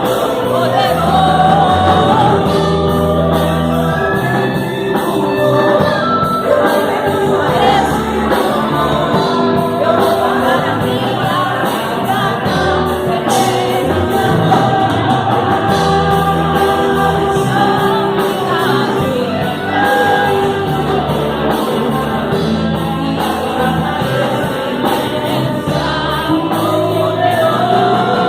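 Gospel song, sung by several voices over a band with bass and a steady drum beat.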